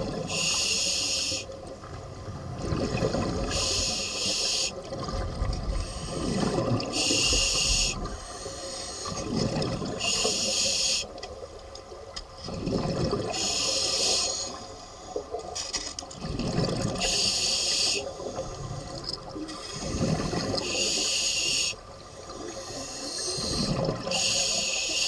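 Scuba diver breathing through a regulator underwater: a hiss with each inhalation, alternating with the low rumble of exhaled bubbles. About eight breaths, one every three seconds or so.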